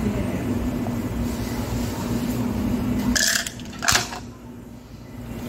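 A steady low room hum, then about three seconds in a short rattle and a sharp knock as a plastic drinking cup is set down on the table.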